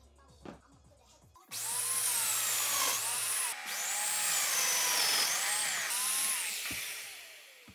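Festool Domino joiner cutting mortises into a wooden table beam. It starts about a second and a half in, and its motor whine dips and recovers in a few arcs as the cutter plunges and withdraws. It winds down near the end. Before it starts there are only a few light knocks.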